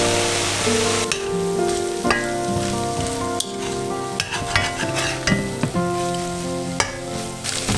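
Food sizzling in a hot pan, strongest at first and easing about a second in, with sharp clicks and scrapes of a utensil as it is stirred.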